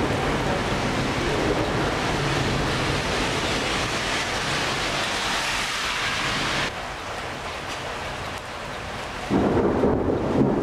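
Thunderstorm: thunder rumbling over the steady hiss of heavy rain. The hiss drops away abruptly about two-thirds of the way through, and a louder low rumble of thunder starts near the end.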